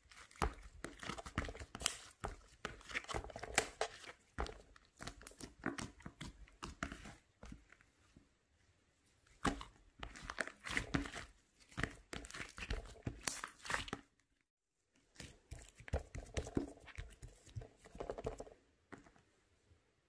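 Hands squeezing, pressing and stretching a soft, glossy slime: quick runs of small crackling pops and clicks in bursts with short pauses, dying away near the end.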